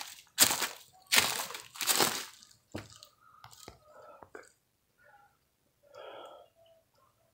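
Footsteps crunching on dry leaves and dead palm fronds on concrete steps: three loud crunches in the first two seconds, then only faint scattered rustles.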